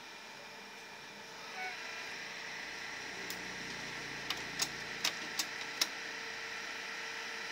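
HP LaserJet Pro MFP M177fw colour laser printer going through its power-on start-up: its drive motor and gear train start running about a second in with a steady whine. About five sharp clicks follow between three and six seconds in.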